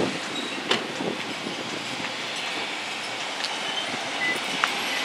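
Steady traffic noise with a few faint clicks.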